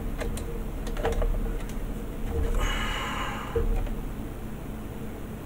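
Hands handling plastic model-kit parts: small clicks and knocks of plastic against plastic, with a short scraping rustle about two and a half seconds in.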